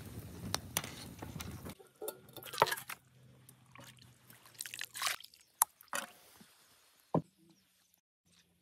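Wood campfire crackling with a steady hiss under a steaming pot, then a ladle scooping and sloshing fish soup, with a boiled crucian carp lifted into a metal bowl in a few separate splashes and clinks.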